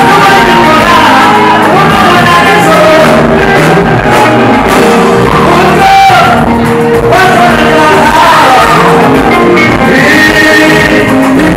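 A male singer sings a gospel song into a handheld microphone, backed by a live band with keyboard.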